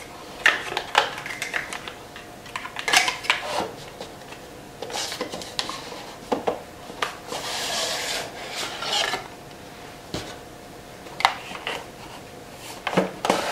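White cardboard perfume box and its packaging being handled and opened: scattered light taps, clicks and scrapes, with a longer rustling slide about seven seconds in.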